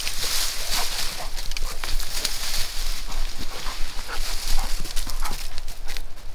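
Dogs pushing through a pile of dry cut branches and dead leaves: a steady rustle with many sharp twig crackles and snaps, and a dog whining briefly a few times.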